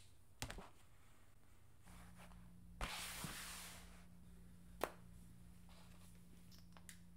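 Gloved hands handling things on a tabletop: a few soft clicks from a lipstick and its cap, then a brief rustling scrape as a spiral notepad is laid down and slid into place, and a single sharp tap near the five-second mark as a small object is set down on the table.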